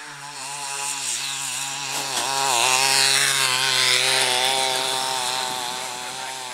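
Motor-driven racing lure whining with a wavering pitch, swelling to its loudest about halfway through and easing off as it and the chasing sighthounds pass, with a rush of noise from the galloping dogs on the sand track.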